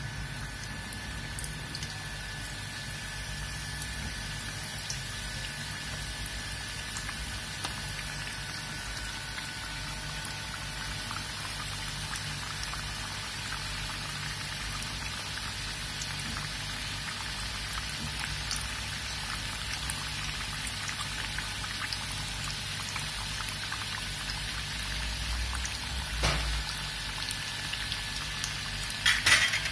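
Samosas deep-frying in hot oil in an aluminium kadhai over medium heat: a steady crackling sizzle like rain. A few sharp knocks near the end.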